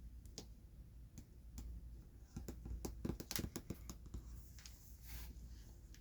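Jumbo Pokémon cards being handled close to the microphone: scattered light taps and clicks, a quick flurry of them in the middle, then a soft rustle as a card slides near the end.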